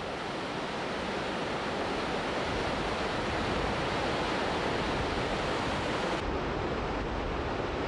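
Waterfall in heavy flow: a steady, even rushing of falling water.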